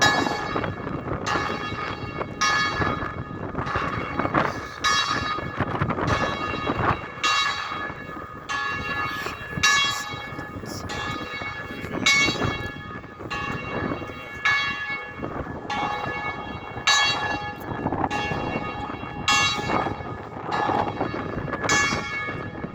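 Bells ringing in a steady series of strokes, about one a second, each tone ringing on into the next. Wind buffets the microphone underneath.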